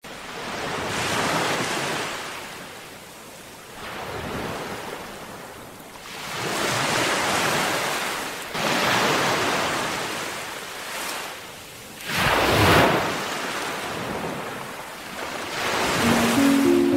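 Ocean surf breaking on a rocky shore, swelling and falling back every few seconds, with the loudest wave about three-quarters through. Music starts about a second before the end.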